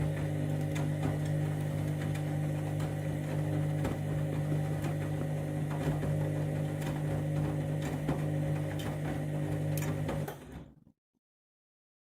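Candy washing machine running its main wash: a steady motor hum with light ticks about once a second. It cuts off abruptly near the end.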